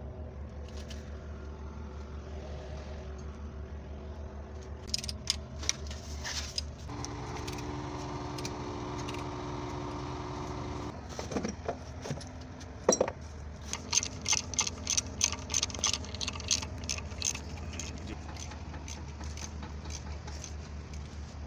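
Metal clinks and knocks of steel hand tools working on a Cat 3512B engine block during cylinder liner removal, over a steady low hum. The knocks come in clusters, with the loudest sharp knock about halfway through. For about four seconds in the middle a steadier droning tone sounds.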